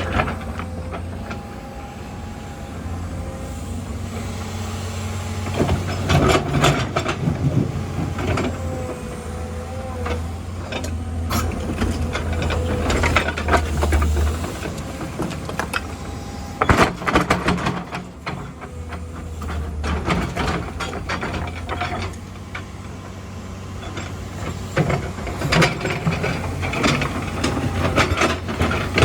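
Hydraulic excavator at work: a steady low diesel drone under a whine that wavers up and down with the hydraulic load, broken by repeated metallic clanks and knocks from the bucket and linkage.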